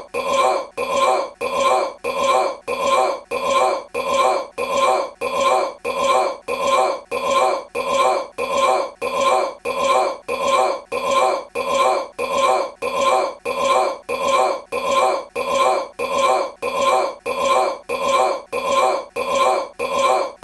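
A man's short belch looped over and over, the identical burp repeating at an even pace of just under two a second.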